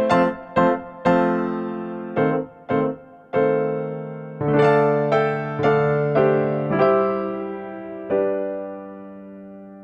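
Background music on electric piano: a short melody of separate struck notes, ending on a held note that fades away.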